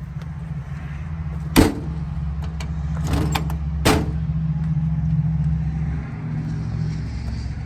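A steady low engine drone with three sharp knocks, the loudest about a second and a half in and two more around three and four seconds; the lowest part of the drone drops away about six seconds in.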